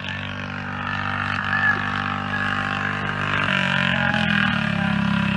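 Briggs & Stratton go-kart engine running steadily with an even drone; about three and a half seconds in its pitch steps up slightly and it gets louder.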